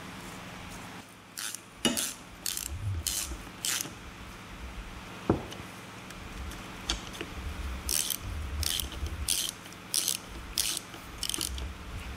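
Hand ratchet clicking as bolts are run into a Johnson 40 HP outboard's lower-unit gearcase: two runs of quick ratchet strokes, about two a second, with a single sharp knock between them.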